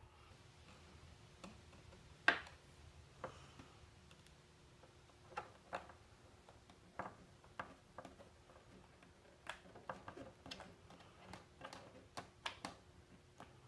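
Irregular light clicks and taps of a screwdriver, screws and small plastic parts being worked at a snowmobile's plastic gauge pod as a bracket is screwed on, the sharpest about two seconds in.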